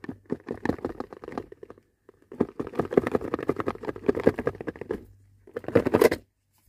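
Cardboard lid of a phone box being worked off by hand: a rapid rasping of cardboard sliding and rubbing against cardboard, in two long runs, with a louder scrape about six seconds in.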